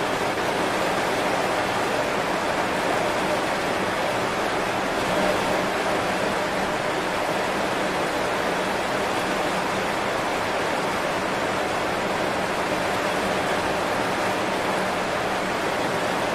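Heavy rain falling steadily on banana leaves: a dense, even hiss of drops that keeps up without a break.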